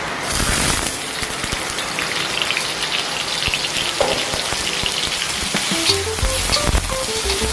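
Food frying in hot oil in a pan, a steady sizzle with crackling spatter that gets louder just after the start. A tune of background music comes in near the end.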